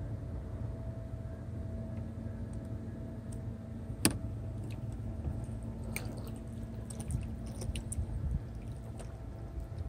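Glass-bottom tour boat's motor running steadily across the water, a low rumble with a faint hum that fades out near the end. A single sharp knock comes about four seconds in, and a few light clicks follow a couple of seconds later.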